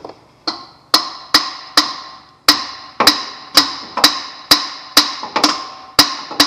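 Hammer blows on a rusted, broken stud in a Chevy tow truck's exhaust manifold, about a dozen sharp ringing metal strikes at roughly two a second, meant to shock the seized stud loose.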